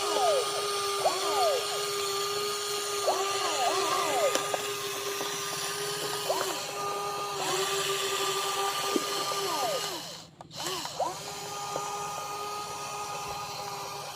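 Small electric motors of a WL16800 radio-controlled excavator whining, with the pitch sliding up and down as the arm and bucket motors start and stop. The sound drops out briefly about ten seconds in.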